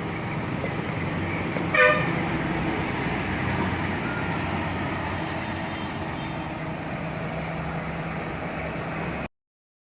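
A heavy vehicle engine running steadily, with one short horn toot about two seconds in. The sound stops abruptly near the end.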